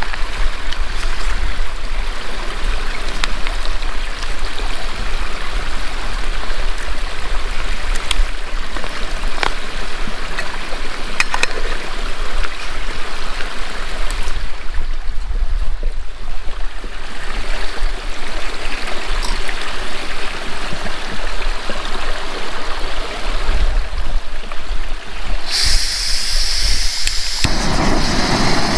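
Mountain stream rushing steadily over rocks beside rock pools. Near the end a louder, hissing rush cuts in.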